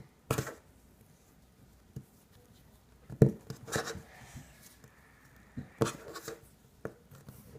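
Kinetic sand being handled with plastic molds: a handful of short, sharp clicks and knocks, bunched near the start, around three to four seconds in and around six seconds in, with faint rubbing between them.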